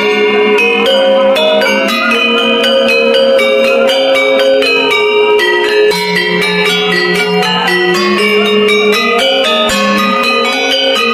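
Balinese gender ensemble playing: bronze-keyed metallophones over bamboo resonators, each struck with two mallets. A rapid, continuous stream of bright notes rings over one another.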